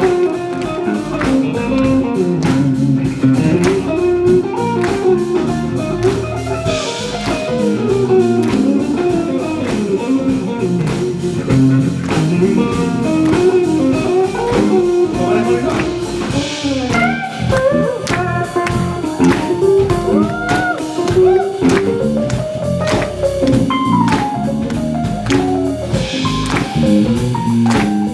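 Live band playing an instrumental break: a lead guitar plays a solo of bending, sliding notes over bass and drums, with a cymbal crash about every nine or ten seconds.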